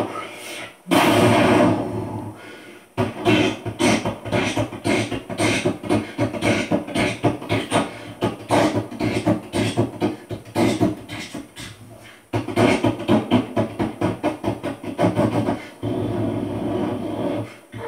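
A person beatboxing into a handheld microphone held in cupped hands: fast runs of mouth-made drum hits mixed with longer held sounds, with a few short breaks.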